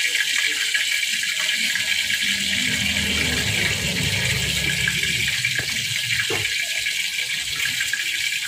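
Chicken deep-frying in hot oil in a wok under a glass lid: a steady, dense sizzle with a few light pops in the middle.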